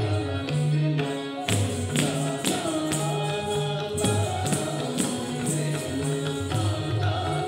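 Odissi dance music: a drum playing low, pitched strokes in a steady rhythm, jingling metal percussion and sharp strikes, under a melody with singing.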